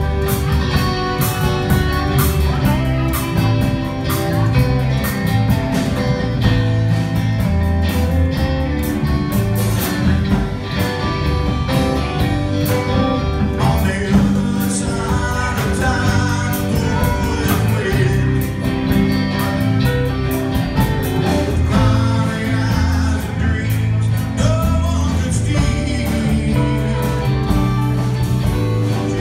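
Live band playing a song on electric guitars and a drum kit, with a steady cymbal beat and a singing voice.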